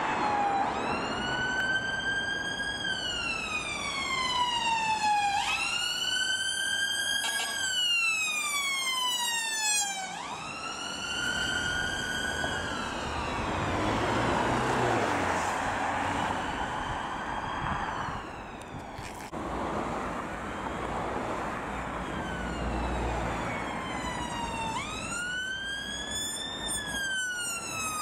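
Emergency vehicle sirens sounding a slow wail over road traffic noise, each cycle rising quickly and then falling over a few seconds. The siren fades into the traffic noise about halfway through, and a fresh wail starts near the end.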